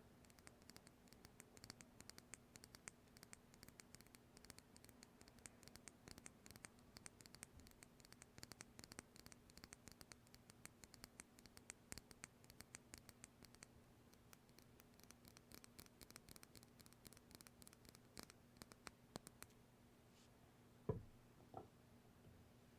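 Faint, rapid scratching close to the microphone for most of the time, thinning out near the end, followed by two soft knocks a little over half a second apart.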